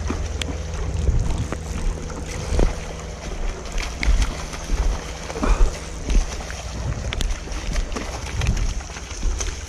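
Wind buffeting the microphone in an uneven low rumble, with scattered light ticks and taps over a faint hiss of moving water.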